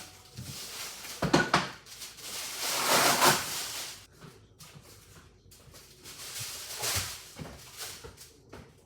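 Wooden cabinet parts sliding with a scraping sound, with a few knocks. The longest scrapes come in the first four seconds and another shorter one about seven seconds in.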